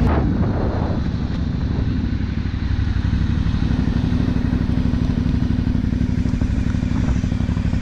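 Motorcycle engine running at steady revs, its exhaust pulses fast and even.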